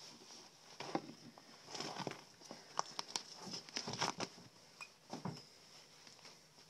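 Irregular small clicks, rustles and wet tearing of hands working over a pheasant carcass as the skin and feathers are peeled and cut away.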